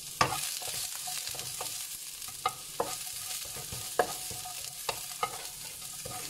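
Sliced onions sizzling in hot ghee in a nonstick wok, with a steady frying hiss. A spatula stirring them knocks against the pan about six times, loudest right at the start.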